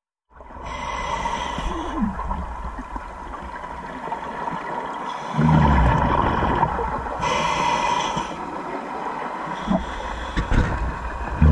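Scuba diver breathing through a regulator, heard underwater: a hissing inhale, then a low burst of exhaust bubbles at about five and a half seconds and again near the end, over a steady underwater hum.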